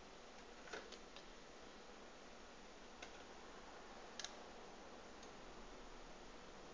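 Near silence: a steady faint hiss with a few faint clicks, a small cluster about a second in, a single click at about three seconds and a quick double click just past four seconds.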